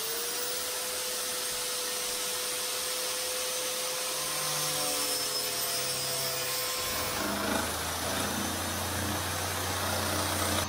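Wet/dry shop vacuum running as dust extraction for a handheld power tool cutting an access hole in a fibreglass interior panel: a steady whine over a constant hiss. About seven seconds in the whine fades and a lower, uneven sound takes over.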